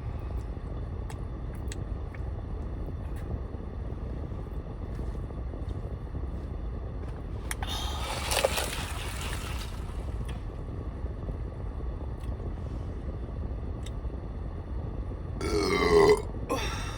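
A person burps loudly near the end, over a steady low hum of a car's engine and air conditioning running. There are faint clicks throughout and a brief rushing noise about eight seconds in.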